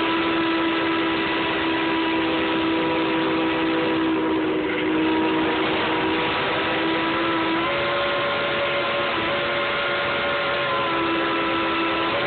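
Steam locomotive chime whistle blown long and continuously, several notes sounding together. The chord shifts and changes pitch a few times as the engineer plays a tune on it.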